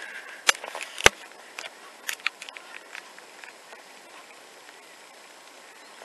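Sharp clicks and knocks of the camera being handled by hand: two loud ones about half a second and a second in, then a run of lighter clicks, settling to a faint steady outdoor hiss.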